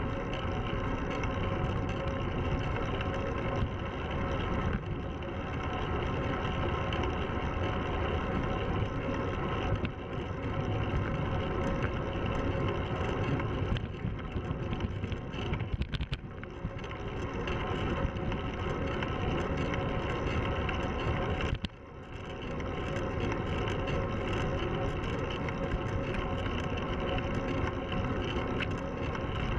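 Road bike rolling at speed on asphalt: steady rushing of wind over a handlebar-mounted camera mixed with tyre roar and a constant hum. The noise drops briefly about 22 seconds in.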